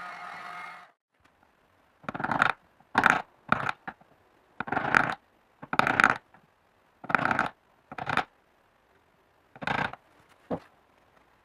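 Wood chisel paring protruding wooden bowtie keys flush with the panel surface: about nine short slicing cuts, each under half a second, at irregular intervals. A short steady hum comes before them at the very start.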